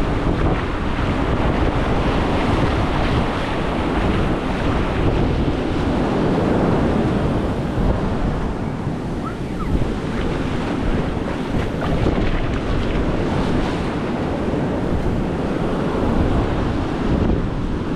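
Ocean surf breaking and washing up the sand in a steady wash, with wind buffeting the microphone and adding a low rumble.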